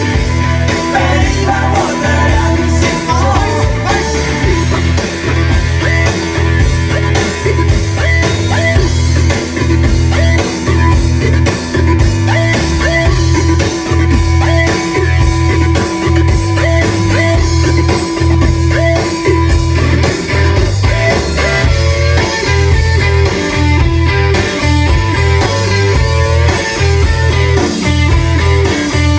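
Guitar-led rock music with a steady, heavy bass beat, played through a car's Dynaudio speaker system fed by an RNS 510 head unit.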